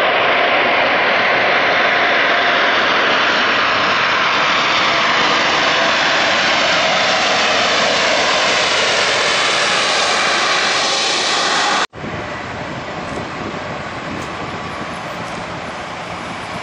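Jet engines of a Boeing 787 Dreamliner running loud as the airliner passes close by: a dense rushing noise with a faint whine. About two-thirds of the way through it cuts off abruptly to a quieter, steady jet-engine noise from a taxiing Boeing 767.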